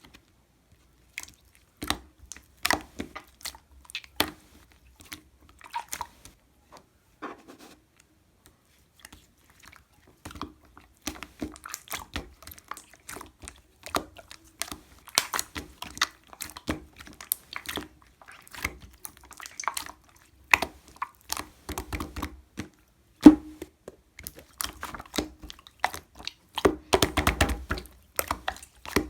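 Slime being squished and pressed by hand, making irregular wet clicks and pops. They come sparsely at first, stop briefly about a third of the way in, then turn dense and fast, with one sharp loud pop near the end.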